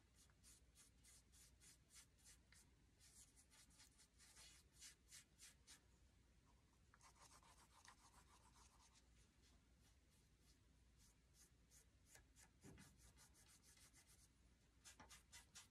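Very faint, quick strokes of a paintbrush dry-brushing acrylic highlights onto a painted wooden board, coming in several short runs of rapid back-and-forth brushing.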